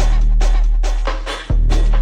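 Background music: an electronic dance beat with a deep bass note that restarts about every second and a half under quick, evenly spaced drum hits.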